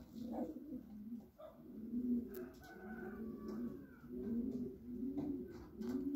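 Domestic pigeons cooing: a run of low, rolling coos, about two a second, with a few faint clicks.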